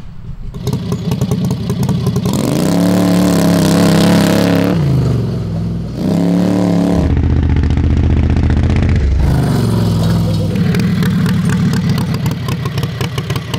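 Heavily modified 670cc Harbor Freight V-twin engine of a front-engine drag rail, run hard under load. It revs up and drops back several times as the throttle is opened and lifted.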